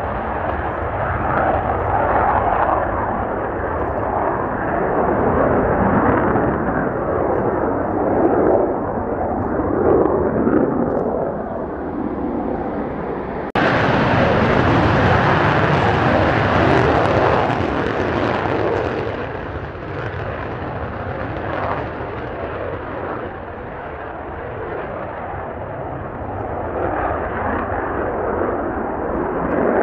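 F-2 fighter's General Electric F110 turbofan running at full afterburner on takeoff and climb-out: loud, steady jet noise. About halfway through it cuts abruptly to a second jet's takeoff, louder and brighter, which eases off a few seconds later and swells again near the end.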